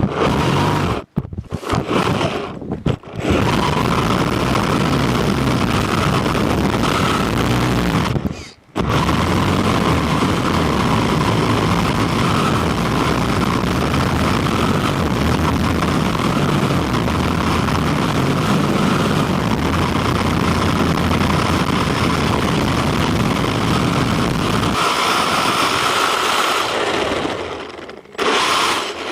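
Quanum Vandal electric RC buggy being driven, heard from on board: a steady motor whine over loud rough rattling and rumbling from the chassis and tyres. The sound cuts out briefly about a second in, again around three seconds, and once more about eight and a half seconds in. Near the end the low rumble drops away and the whine stands out.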